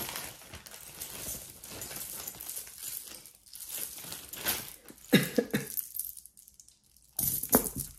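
Plastic zip-lock bags crinkling and rustling while costume jewelry is handled, with metal chain links clinking. Two louder moments of handling come about five and seven seconds in.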